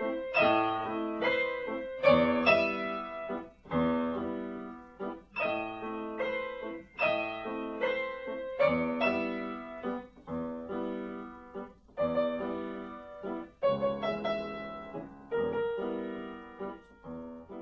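Solo piano playing: chords and notes struck about every half second to a second, each ringing and fading before the next.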